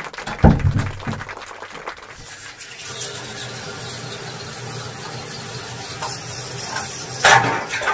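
Shower water running steadily after a knock at the start, as the shower is turned on; the flow surges louder near the end.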